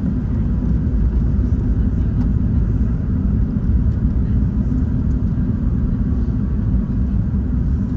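Steady low rumble of a distant airliner's jet engines: a British Airways Airbus A380 with Rolls-Royce Trent 900 engines on approach.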